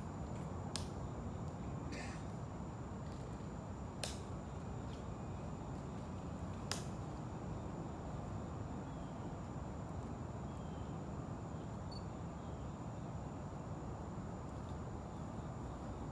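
Quiet outdoor ambience: a steady high-pitched insect drone over a low, even background rumble, with four short sharp clicks in the first seven seconds.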